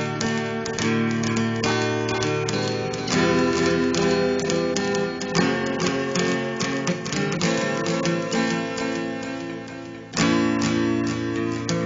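Acoustic guitar music with strummed chords. It dies away just before ten seconds in, then comes back sharply with a fresh strum.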